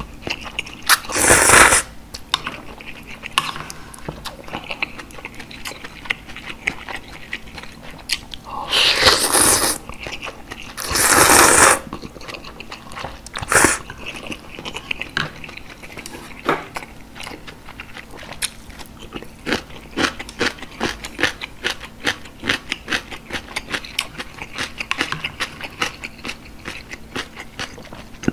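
Close-miked eating of galbitang: four loud slurps of glass noodles and broth in the first half, the last one short. Wet chewing with many small mouth clicks runs between and after them.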